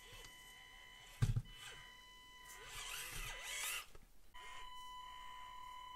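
Small 1/24-scale RC rock crawler driving over a wooden obstacle: its electric motor and gears whine, rising and falling in pitch with the throttle, over a steady high-pitched whine. A single sharp thump comes about a second in.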